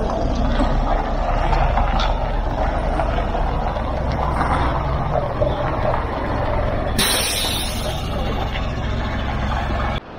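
Double-decker bus engine running close by, with a sharp hiss of compressed air from the bus's air system about seven seconds in, lasting about a second.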